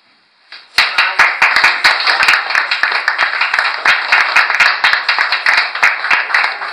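A small crowd applauding, dense irregular clapping that starts suddenly about a second in.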